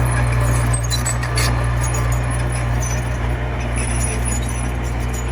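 Komatsu mini bulldozer's diesel engine running steadily under load, with a few light metallic clinks in the first second or so.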